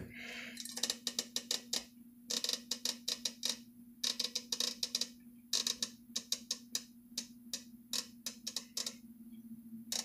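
Emerson friction-drive ceiling fan's speed control being turned up by hand, giving runs of sharp clicks with short pauses between them, over the steady hum of the fan motor.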